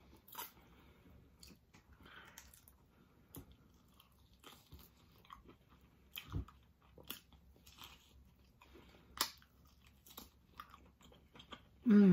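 Close-up eating sounds of barbecued baby back ribs: scattered quiet bites, chewing and mouth smacks as the meat is pulled off the bone, with a soft low thump about six seconds in. A brief vocal sound closes the window and is the loudest thing in it.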